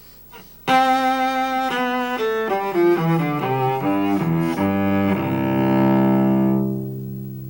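Cello played with the bow: a run of short notes stepping downward, starting about a second in, that ends on a long held low note which fades away near the end.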